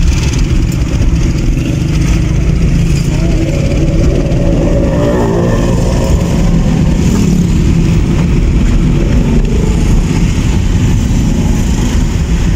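Steady low rumble of a car driving through city traffic, heard from inside the cabin: engine and road noise. A fainter wavering sound rises over it about five seconds in.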